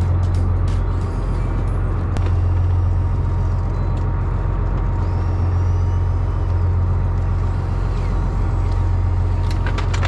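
A fishing boat's machinery running with a steady low drone and a faint constant whine.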